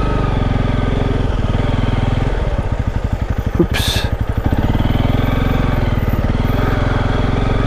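Motorcycle engine running at low revs with a steady chug of firing pulses. A short sharp noise comes about four seconds in.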